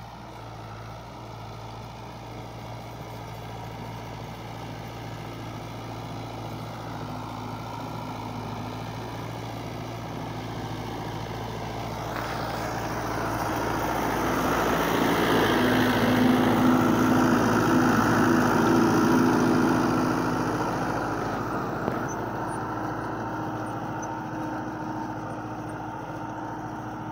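1983 Fiat 640 tractor's four-cylinder diesel engine running steadily under load while pulling a spring-tine cultivator through the soil. It grows louder past the middle as the tractor comes close, then eases off again.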